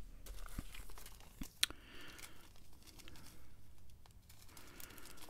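Small plastic zip-lock bags of diamond painting drills crinkling faintly as they are picked up and handled, with a few light clicks and one sharper click about one and a half seconds in.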